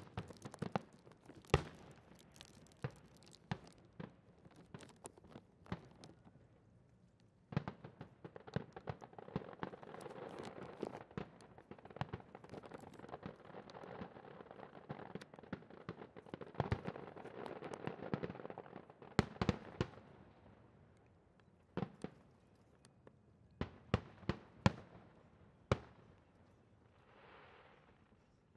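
Fireworks display: aerial shells bursting with sharp bangs, with a dense stretch of continuous crackling through the middle, then a few separate bangs near the end.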